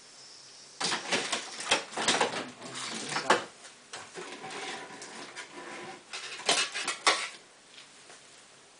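A burst of clattering knocks of hard objects, then a softer squeaky, whining stretch, then a few more sharp knocks.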